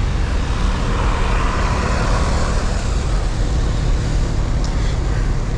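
Wind rumbling on an action camera's microphone during a bicycle ride, mixed with road traffic noise. The noise swells for a couple of seconds about a second in.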